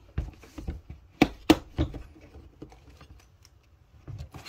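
Latches of a Smith & Wesson hard plastic pistol case clicking open: light clicks, then two sharp snaps about a quarter second apart a little over a second in, followed by quieter knocks of the case being handled and the lid opening.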